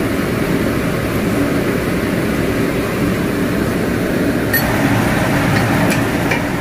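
Steady fan-like hum over a wok of chicken in sauce simmering on a gas burner, with a few faint light clinks in the second half.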